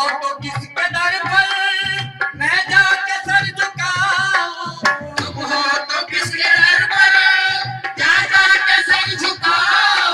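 Qawwali being performed: a singer's voice with an even beat of hand drums.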